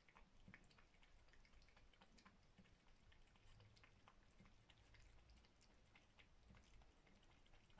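A cat eating from a bowl: very faint, irregular wet clicks of licking and chewing, several a second.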